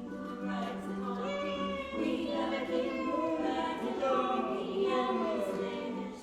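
Choir singing with music, several voices moving in pitch together over a steady low held note in the first two seconds.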